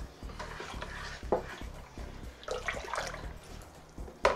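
Liquid sloshing and swirling as a long plastic spoon stirs blackberry and rhubarb wine must in a plastic fermentation bucket, with a sharp knock about a second in and a louder one near the end.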